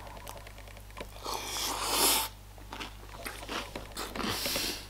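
A mouthful of Reese's Puffs cereal in milk being chewed close to the microphone: many small crunches, with two louder, longer stretches of crunching about a second in and near the end.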